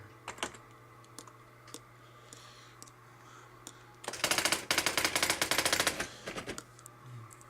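Brother EM-411 electronic daisy-wheel typewriter printing back a stored line of text: a rapid machine-gun-like run of character strikes and carriage movement lasting about two and a half seconds, starting about four seconds in. A few single key clicks come before it.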